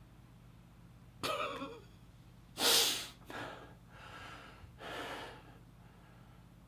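A man breathing heavily and unevenly: about five breaths, the loudest a sudden one near the middle.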